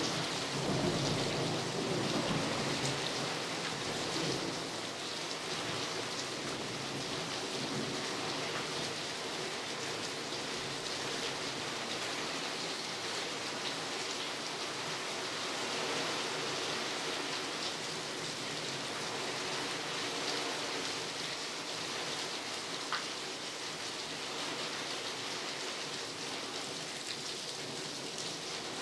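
Steady rain falling during a thunderstorm, with the low rumble of thunder dying away in the first couple of seconds.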